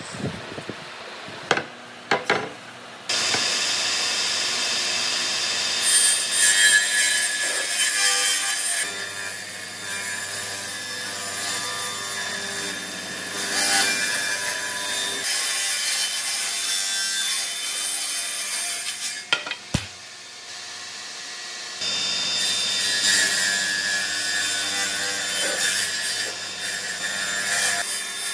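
Table saw ripping a wide wooden slab lengthwise, the blade cutting steadily through the board. A few knocks of the boards being handled come before the cut starts, about three seconds in, and the cutting noise drops briefly around twenty seconds in before it resumes.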